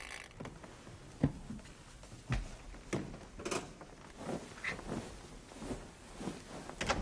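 A series of light, scattered knocks and thuds, irregularly spaced about half a second to a second apart, like movement and the handling of things in a small room.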